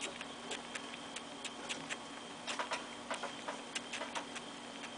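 Baby squirrel suckling milk from a syringe tip: a run of faint, irregular little clicks and smacks, several a second, over a faint steady hum.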